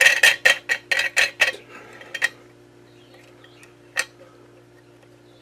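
Small metal objects clinking: a rapid run of sharp clinks, about four a second, that stops after about two seconds, then one more sharp clink about four seconds in.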